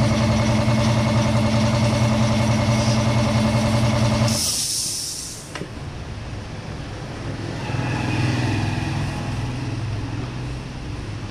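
A machine in the shop runs with a steady, loud hum, then cuts off about four seconds in with a short, sharp burst of hissing air. Quieter workshop sounds follow, with a softer swell of hum a few seconds later.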